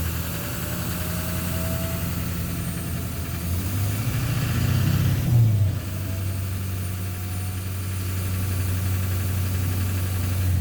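Duramax LMM 6.6-litre V8 turbodiesel idling, briefly revved about four seconds in and then settling back to a steady idle.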